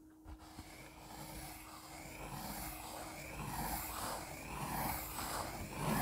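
Pencil lead scratching over paper in fast looping circular strokes: a rasp that swells and fades about twice a second and grows louder as it goes.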